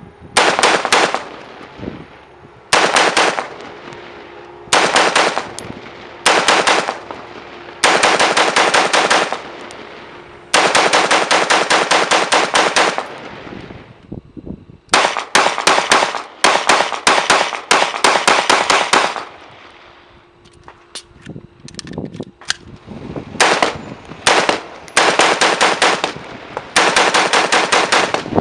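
Fully automatic 5.56 M4-type rifle fitted with a VG6 Gamma muzzle brake, fired in about a dozen bursts of rapid shots. The bursts run from short ones of about half a second to long ones of over two seconds, with short pauses between.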